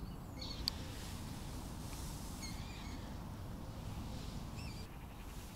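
Quiet outdoor ambience with a steady low rumble, a few short bird chirps about two and a half seconds in and again near the end, and a single sharp click a little under a second in.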